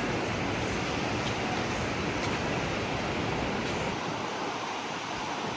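Steady rushing of river water discharged from a dam's open spillways.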